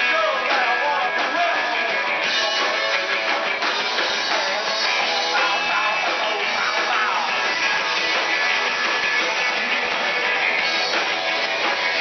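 Live rock band playing, with electric guitars and a drum kit.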